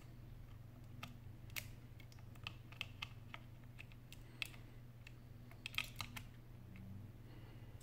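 Scattered light clicks and taps of a small repair tool working on the internals of an opened iPhone 8 Plus, with a quick cluster of sharper clicks about six seconds in.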